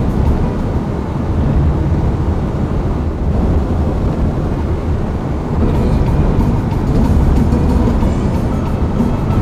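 Road noise inside a moving car on an unpaved dirt road: a steady, loud low rumble of tyres and engine.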